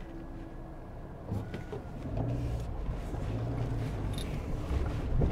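2019 Suzuki Jimny's 1.5-litre petrol four-cylinder engine running at low revs inside the cabin while crawling over a rough off-road track, growing louder about two seconds in. A few sharp knocks and clicks from the vehicle over the bumps.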